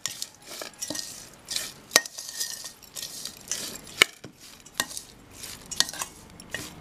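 Grated coconut and jaggery being mixed by hand in a stainless steel bowl: a rustling, scraping sound with irregular sharp clinks against the metal bowl.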